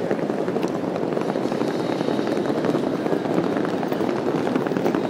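Steady background din of a busy airport terminal hall: an even rumble with faint scattered clicks.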